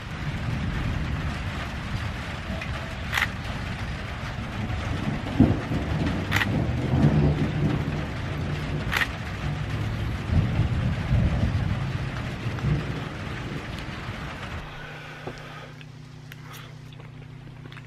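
Rain falling, with a heavy low rumble and three sharp clicks a few seconds apart. Near the end the rain cuts off abruptly and gives way to a quieter steady hum.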